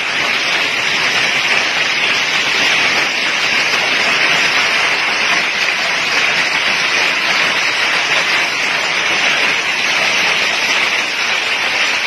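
Heavy rain mixed with hail coming down in a hailstorm: a loud, steady hiss of downpour.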